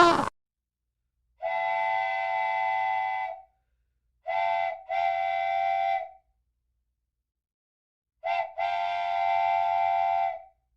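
A steady multi-tone whistle blowing three times: one long blast, then twice a short toot followed by a long blast.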